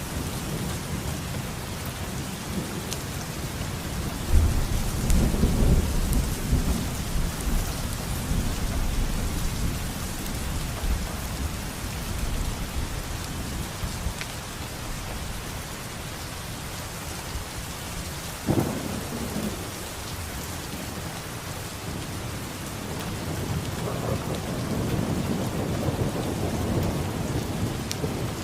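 Steady rain with rolling thunder. A heavy low rumble comes about four seconds in, a sharp crack about two-thirds of the way through, and another rumble builds near the end.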